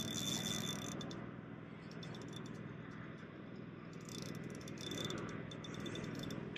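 Spinning reel being cranked to retrieve line, its gears giving a fast whirring rattle in two spells, about the first second and again about four seconds in, over a steady low hum.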